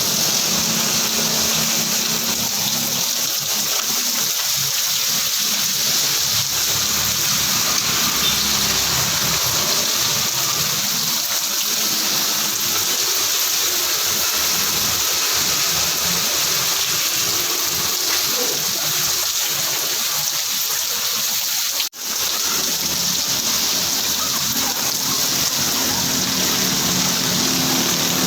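Heavy rain falling, a steady dense hiss of drops, dropping out for an instant about three-quarters of the way through.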